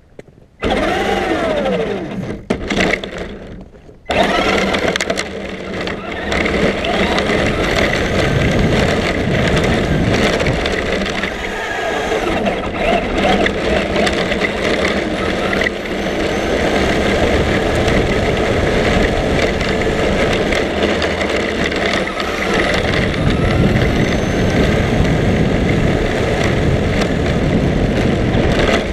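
A Traxxas remote-control car driving, heard from a camera mounted on it. The motor whine rises and falls with the throttle over dense rattling and knocking from the chassis and ground, starting about half a second in with a brief drop near four seconds.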